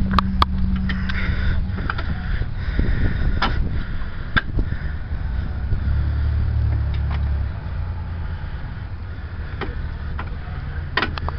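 Scattered metal clinks and knocks as the bottom of a new strut assembly is lined up and its bolts are fed in by hand, over a steady low rumble.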